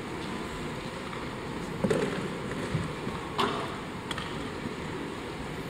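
Steady background noise of a large hall, with a few short faint knocks about two seconds and three and a half seconds in.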